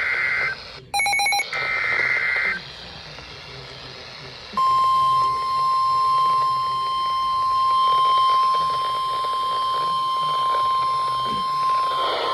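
Emergency Alert System SAME data header, short rasping digital warble bursts, ending about two and a half seconds in. After a moment of radio hiss, the weather-radio 1050 Hz warning alarm tone starts about four and a half seconds in, a single loud steady beep that is held on.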